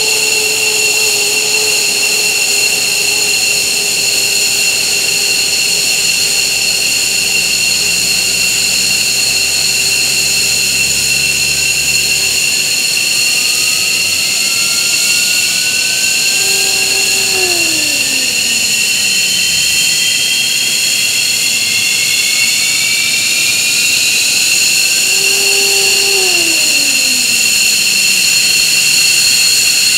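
F-15J's Pratt & Whitney F100 turbofan engines starting up: a steady high-pitched whine, with a thinner whine rising gradually as an engine spools up from about a third of the way in. Twice, about halfway and near the end, a lower tone holds briefly and then slides down in pitch.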